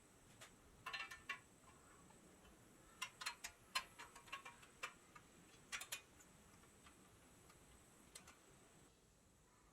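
Scattered light clicks and taps of small hard parts being handled, in irregular clusters with quiet between them: a few about a second in, a busier run in the middle, and single ones near the end.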